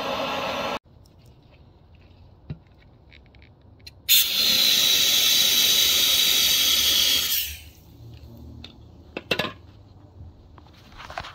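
Water sprayed onto the freshly welded, still-hot differential housing of a lawn tractor transaxle, hissing loudly for about three seconds as it flashes to steam, then a couple of light knocks.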